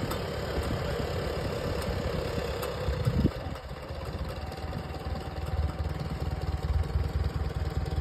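Engine of a farm machine working a garden, running steadily with a low rumble. A higher whine in the sound stops about three seconds in.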